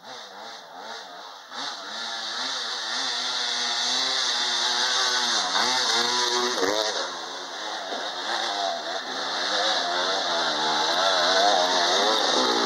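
Two-stroke dirt bike engine revving hard as the bike comes up a muddy trail. Its pitch rises and falls with the throttle and gear changes, and it grows louder as the bike closes in, with a short let-off about six seconds in.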